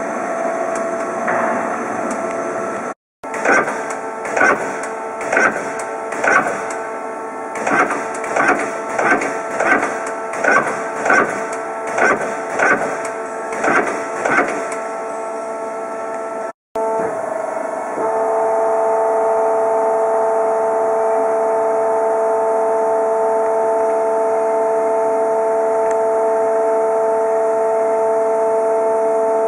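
Cincinnati Hawk TC150 CNC lathe running with a steady mechanical whine of several held tones, cut off briefly twice. In the middle stretch a regular knocking pulse comes about one and a half times a second. From about halfway on the whine holds steady and loud.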